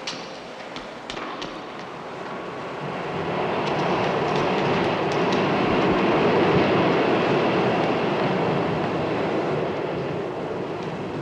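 New York City subway train running through the station. Its noise builds from about three seconds in, is loudest around the middle, and slowly fades.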